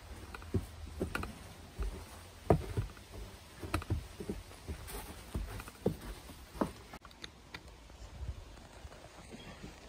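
Winter boots crunching in fresh snow: slow, irregular footsteps, with the loudest step about two and a half seconds in.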